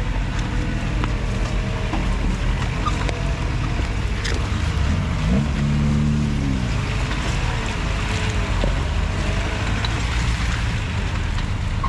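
Off-road vehicle engine running at low revs, with a short rev up and back down about six seconds in. Light knocks and a steady hiss of wind and rain sound over it.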